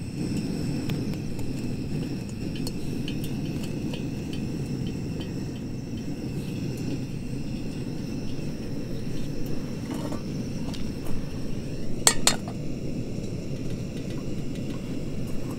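Camp cookware and utensils clinking and knocking during breakfast preparation, with a sharper clink about twelve seconds in, over a steady low rush.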